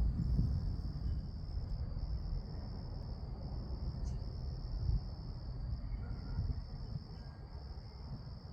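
Steady high-pitched chorus of night insects over a low, uneven rumbling noise that swells and fades.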